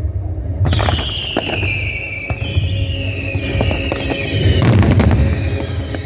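Ground fireworks display going off. About a second in, several high whistles start, overlapping and falling in pitch, with sharp pops. Near the end a loud, dense crackling burst comes, all over a low rumble.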